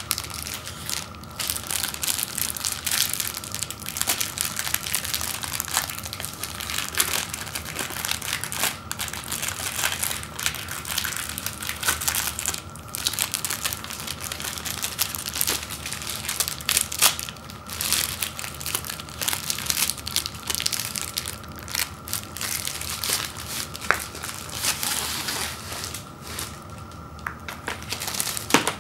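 Thin plastic candy-bag wrapper crinkling and crackling irregularly as it is handled and pulled open, with a few short pauses, and the cardboard tray of wrapped snack bars is slid out of it.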